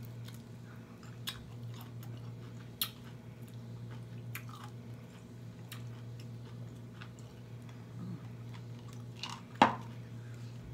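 A person chewing close to the microphone, with wet mouth clicks and lip smacks scattered throughout. The loudest, a sharp smack, comes about nine and a half seconds in.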